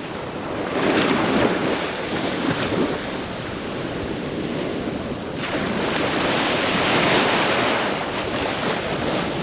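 Small surf waves breaking and washing up over sand, swelling louder about a second in and again in the second half, with wind rumbling on the microphone.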